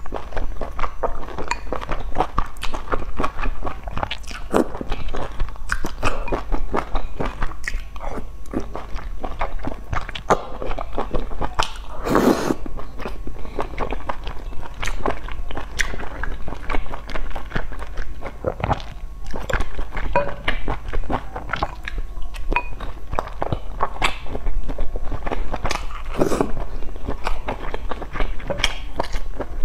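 Close-miked eating: a person slurping and chewing wide noodles in broth, with wet mouth smacks and clicks and one louder slurp-like burst about twelve seconds in.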